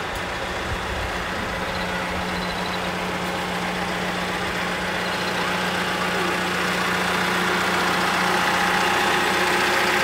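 Diesel engine of a large site dumper idling steadily, growing gradually louder as it is approached.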